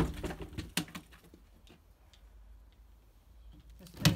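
Rotten wooden planks being struck and broken apart. A hard knock at the start is followed by a few lighter cracks and clatters of wood, then another hard knock near the end.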